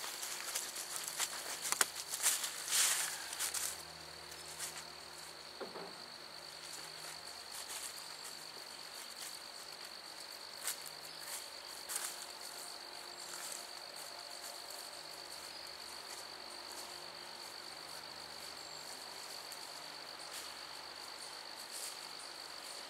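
Insects trilling steadily at a high pitch in woodland, with a few rustles and knocks in the first few seconds.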